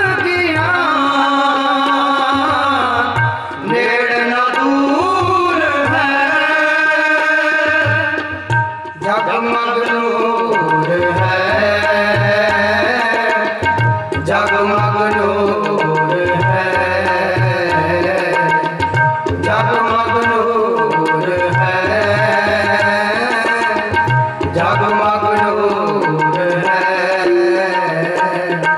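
Shabad kirtan: voices singing to harmonium, with a tabla pair keeping rhythm. The tabla drops back a few seconds in and comes back strongly about nine seconds in.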